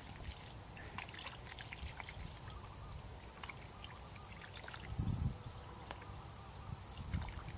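Hands and feet sloshing in shallow muddy water, with scattered small splashes and two heavier sloshes about five and seven seconds in.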